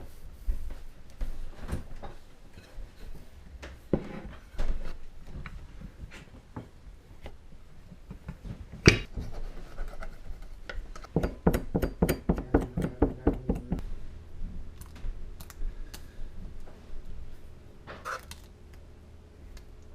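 Kitchen work sounds: scattered knocks and clinks of utensils and dishes on a counter, with a quick run of about a dozen taps near the middle, while pie dough is handled.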